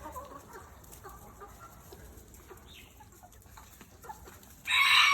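Chickens clucking faintly, then a sudden loud squawk near the end.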